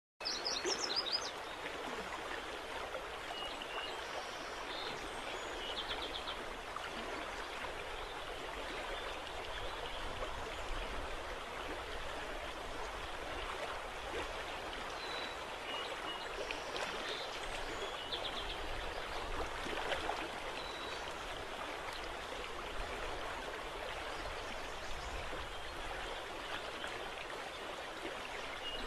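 Steady, even rush of water on a river estuary, with a few brief high bird chirps scattered through it.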